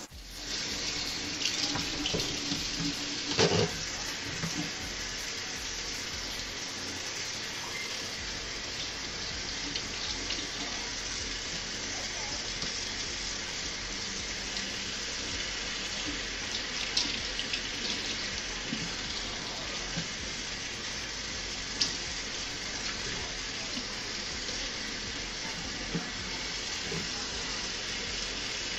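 Kitchen faucet running steadily into a stainless steel sink while hair is rinsed under the stream. The water starts right at the opening, and there is a louder knock or splash about three and a half seconds in.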